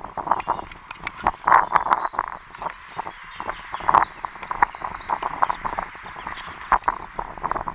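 Birds chirping in a quick, continuous chatter, over short clicks and knocks of a wooden spoon scraping thick sauce out of a plastic cup.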